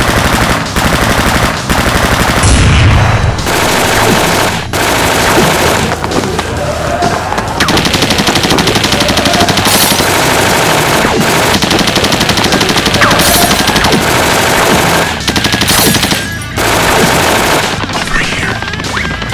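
Rapid machine-gun fire sound effects, nearly continuous with a few short breaks, and a heavy boom about two and a half seconds in. Background music runs underneath.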